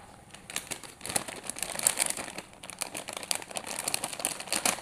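Clear plastic packaging bag crinkling and rustling in irregular crackles as hands handle it and pull small plastic measuring beakers out of it.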